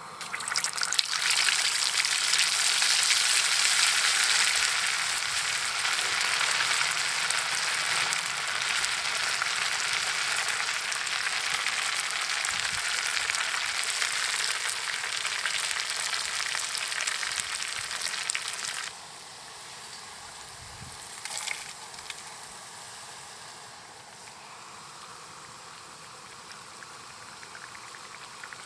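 Food frying in a pan: loud, steady sizzling that starts about a second in and drops off suddenly about two-thirds of the way through, leaving a faint hiss.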